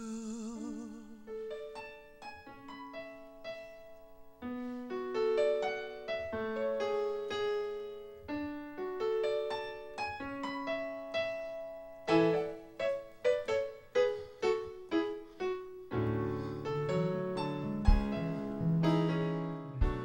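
The end of a slow pop ballad: the singer's last held note, with vibrato, fades within the first second, then a piano-sound keyboard plays on alone in single notes and chords. Lower notes join about four seconds before the end.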